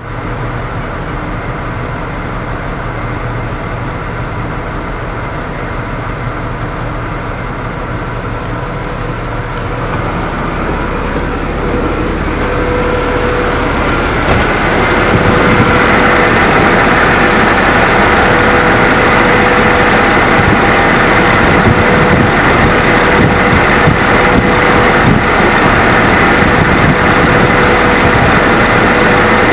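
Cummins 8.3-litre compressed-natural-gas engine of a Freightliner FL80 truck idling steadily. Heard first from inside the cab, it grows louder about ten seconds in and again around fifteen seconds, up close at the open engine bay.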